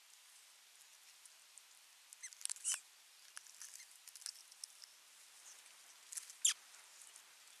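Osprey tearing at a fish with its beak: faint scattered wet ticks and crackles over a steady hiss, in two short clusters, the louder near the end.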